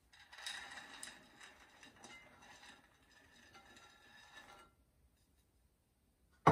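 Raisins and currants being tipped and scraped off a china plate into a mixing bowl of flour and dry ingredients: a faint patter with small clicks that stops a little over two-thirds of the way through.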